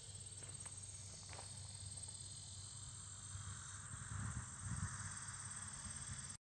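Steady, high-pitched chorus of insects in summer vegetation, with a low steady hum beneath and a soft rushing swell in the second half.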